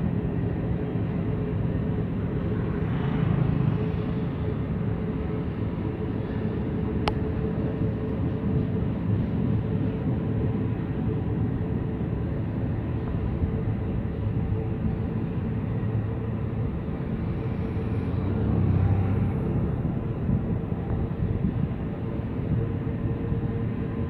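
Loaded iron-ore freight train's hopper wagons rolling past: a steady low rumble of steel wheels on rail. A single sharp click about seven seconds in.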